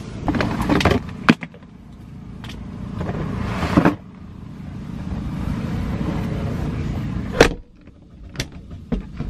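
Handling noise from rummaging through clear plastic storage drawers: clicks and knocks and a rustle that swells for a couple of seconds and stops short, over a low steady rumble. A sharp knock comes near the end, then the rumble drops away.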